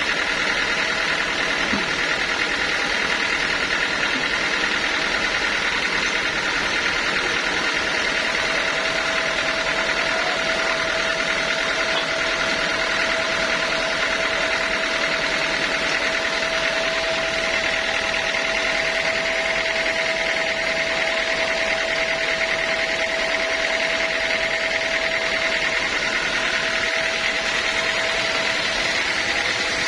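Sawmill machinery running steadily at an even level. A steady whine comes in about a quarter of the way through and holds until near the end.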